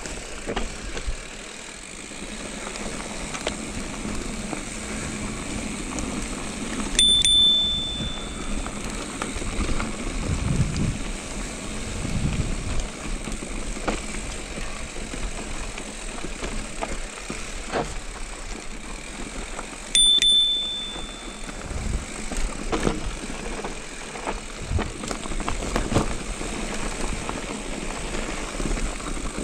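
Electric mountain bike rolling fast down a dirt and rock trail: steady wind and tyre noise with scattered knocks and rattles from the bike. A handlebar bicycle bell rings twice, each time a single short ding, about a quarter of the way in and again about two-thirds in.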